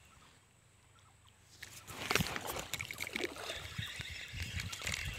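Near silence, then about a second and a half in, irregular rustling and clattering as the camera is handled and moved.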